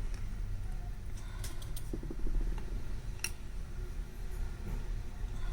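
Scattered small clicks and a short scraping patch from a hand tool scraping old adhesive off a phone housing, over a steady low hum.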